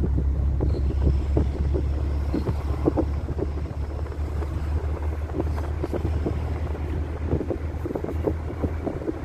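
Steady low rumble of a moving car with irregular gusts of wind buffeting the microphone.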